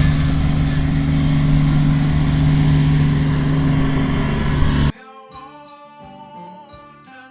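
An engine running steadily, a strong even hum with rushing noise over it, which cuts off suddenly about five seconds in. Quiet acoustic guitar music follows.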